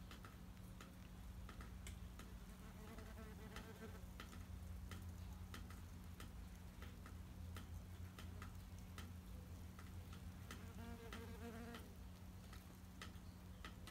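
Wasps buzzing faintly at their paper nest, in two short spells: a few seconds in and again near the end. Irregular faint clicks and a steady low hum run underneath.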